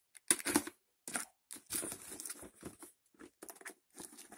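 Delivery packaging being torn open: a run of irregular tearing and crinkling noises with short pauses between them.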